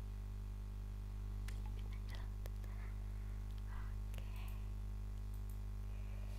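Steady low electrical hum, with a few faint sharp clicks and soft rustles between about one and a half and four and a half seconds in.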